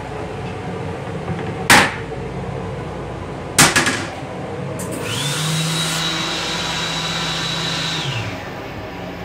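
Two sharp knocks about two seconds apart as the toilet lid is banged shut in an M8 rail car restroom. Then the sink faucet runs for about three seconds with a steady hum and a thin whine over the water, stopping near the end.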